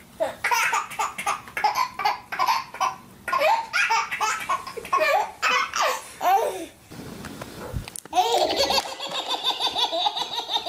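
A baby laughing hard in repeated belly laughs. Then, after a low thump, another baby laughs in quick, even bursts of about three or four a second.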